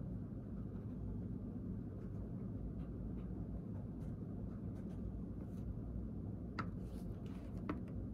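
Ballpoint pen writing on notebook paper, a faint scratching over a steady low background hum, with two sharper ticks near the end.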